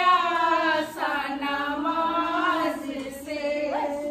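Group of women singing a devotional song together, unaccompanied, on long drawn-out notes.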